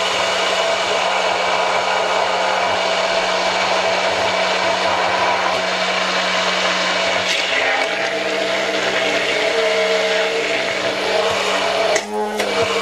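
Stick blender running at reduced speed in a tall beaker, whirring steadily as it emulsifies egg, garlic and oil into aioli while the blade is drawn slowly upward. Its tone shifts about halfway in, and the sound briefly breaks up near the end.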